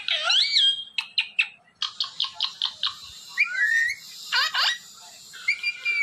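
Parrot whistles and chirps: a rising-and-falling whistle at the start, a fast run of about six short chirps a second around two seconds in, then warbling calls and quick falling sweeps.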